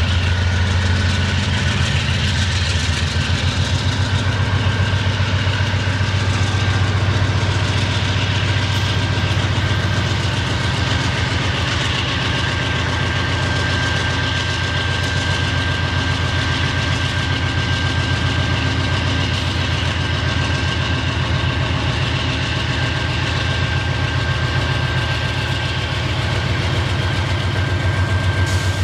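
Several diesel freight locomotives passing close by at the head of a long train of hopper wagons, their engines running with a steady low throb. A thin, steady high whine sits over it and grows stronger about halfway through.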